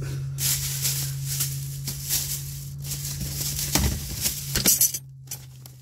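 Rustling and rattling as tools in their packaging are handled, with a few sharp clicks about four seconds in, over a steady low hum.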